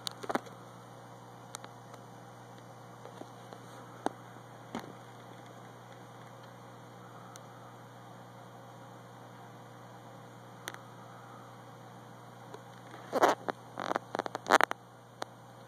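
Steady low electrical hum with occasional faint single clicks. About thirteen seconds in come several louder knocks and rubbing sounds over a second and a half, from the camera being handled.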